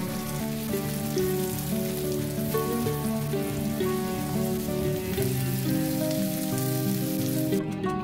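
Diced potatoes and sliced mushrooms sizzling steadily in oil in a frying pan, with instrumental background music throughout. The sizzle cuts off abruptly near the end, leaving only the music.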